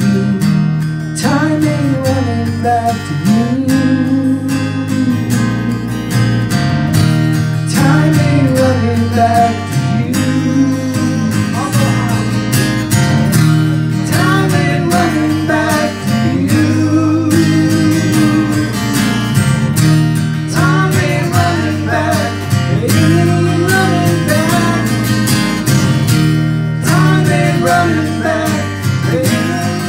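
Live acoustic duo playing a song: strummed acoustic guitar over electric bass, with a voice singing the melody.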